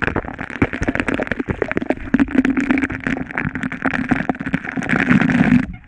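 Water spray from a pool fountain pattering and splashing on the water right at a camera held at the waterline: a dense, crackling rush of droplets. It cuts off abruptly near the end.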